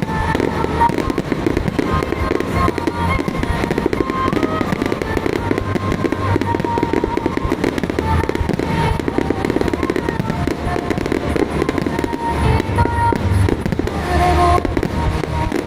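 A dense, continuous barrage of fireworks bursting and crackling in a finale, with deep booms underneath, while music plays throughout.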